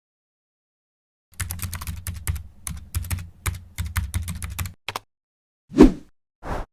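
A rapid run of sharp clicks, like typing on a computer keyboard, for about three seconds over a low hum, then one louder short noise and a brief softer one near the end.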